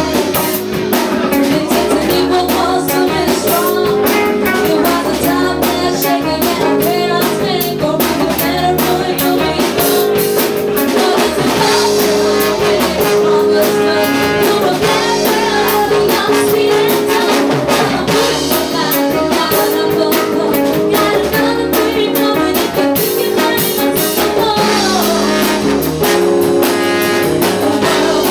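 Live funk band playing: drum kit keeping a steady beat under guitar and bass, with a singer's voice over the top.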